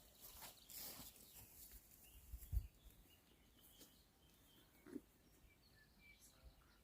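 Very quiet outdoor ambience with a few short, faint bird chirps in the second half, and a single low thump about two and a half seconds in.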